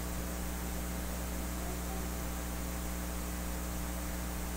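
Steady electrical mains hum with a low hiss.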